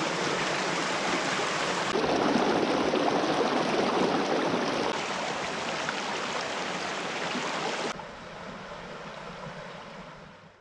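Steady rushing of running water, in a few short stretches cut together. It becomes quieter about eight seconds in and fades out near the end.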